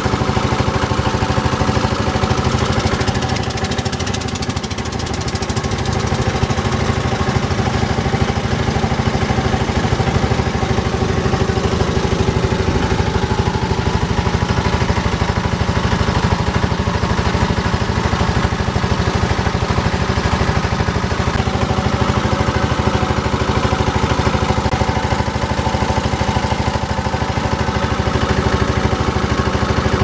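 Engine of a wooden river boat running steadily under way, dipping slightly in loudness around four seconds in.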